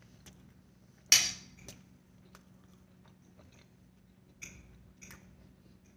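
A person chewing a mouthful of chicken patty with sauce: soft, scattered mouth clicks, with one louder sudden noise about a second in.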